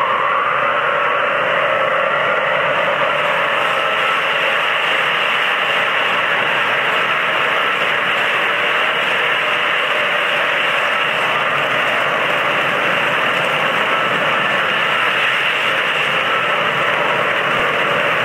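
A long string of MTH model tank cars rolling past on the layout's track, giving a steady, even rolling noise that does not change.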